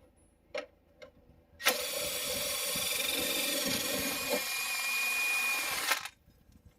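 A 20-volt Earthquake cordless impact tool running for about four seconds, winding a scissor jack down to lower the car, then cutting off suddenly. A few light clicks come before it.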